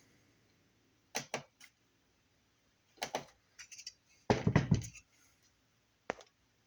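Scattered clicks and knocks of things being handled, with a longer, louder clatter about four and a half seconds in.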